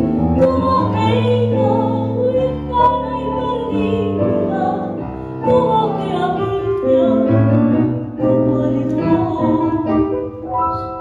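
Recorded tango song playing, in a passage between the sung lines.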